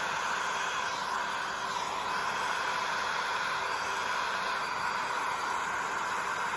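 Electric heat gun blowing steadily, an even airy hiss, the tool used to push and lace the resin into ocean-wave cells.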